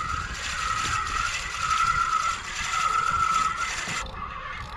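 Fishing reel under load from a hooked fish, whining in four pulses over a hiss; the sound cuts off about four seconds in.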